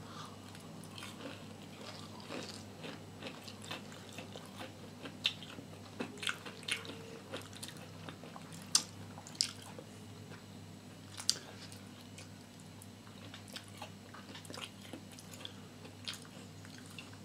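Two people chewing crispy fried banana fritters with chocolate filling: soft chewing with scattered crisp crunches and a few sharper clicks, over a faint steady low hum.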